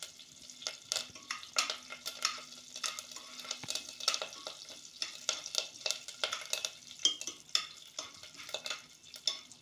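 A spoon scraping and clicking against an open pressure cooker as peanuts, dried red chillies, mustard seeds and curry leaves are stirred and fried in hot oil, with a sizzle under the irregular scrapes. This is the tempering stage, the peanuts being roasted in the oil.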